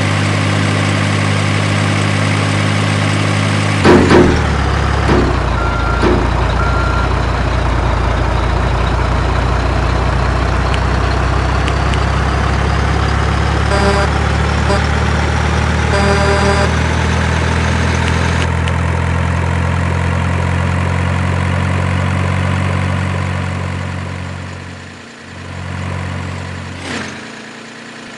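Heavy diesel engine of a construction vehicle running steadily at idle, with a loud clank about four seconds in, two short beeps soon after and a few more brief beeps later. The engine dies away near the end.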